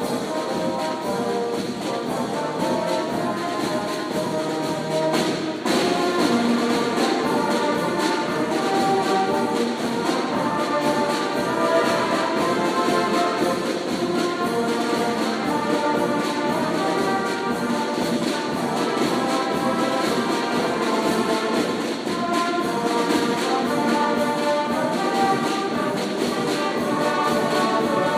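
Youth marching band playing: brass horns carrying the tune over a steady beat of snare and bass drums. The band gets louder about five and a half seconds in.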